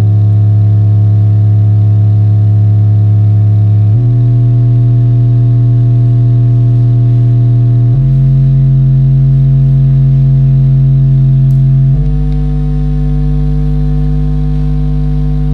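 Tosunra Bass 801 8-inch subwoofer, driven by a ZK-MT21 amplifier, playing low test tones: a loud, steady buzzy hum with a string of overtones. The pitch steps up a little about every four seconds, at roughly 4, 8 and 12 seconds in.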